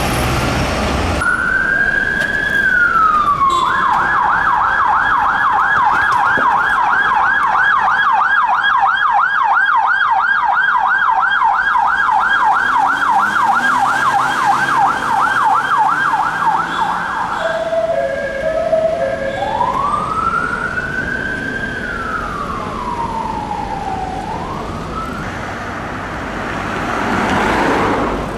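Police van siren going past: a falling wail, then a fast yelp for about fourteen seconds, a brief low stepped tone, then a slow rising and falling wail.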